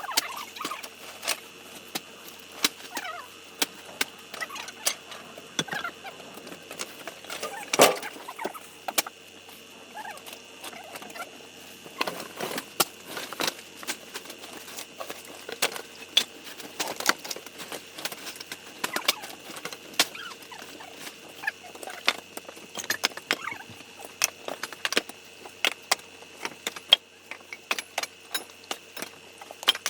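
Irregular sharp knocks and clatters of split firewood pieces being handled and stacked, one louder knock about eight seconds in.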